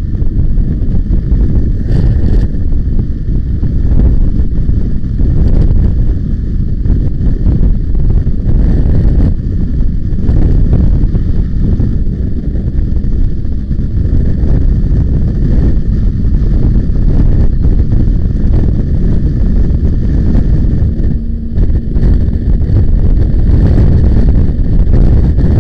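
Wind buffeting the microphone of a motorcycle riding at highway speed, a loud steady rumble, with the motorcycle's engine and tyre noise underneath.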